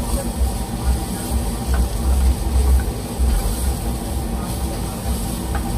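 Flat spatula stirring and scraping diced vegetables around a steel frying pan on a gas burner, over a steady low rumble.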